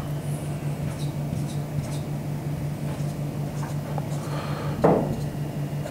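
Whiteboard marker drawing a series of short dashes on a whiteboard, each stroke a small dry scratch, over a steady low hum. About five seconds in, a brief louder sound sweeps down in pitch.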